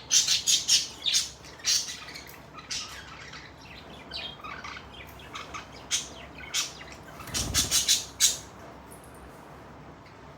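Budgerigars chirping and squawking in short, sharp, high calls, busiest in the first two seconds and again from about six to eight seconds in, then dying down.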